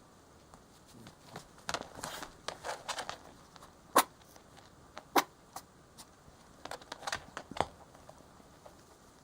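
A pet rabbit moving about, its feet scuffling and tapping, with a few short sharp sounds, the loudest about four and five seconds in and another near eight seconds.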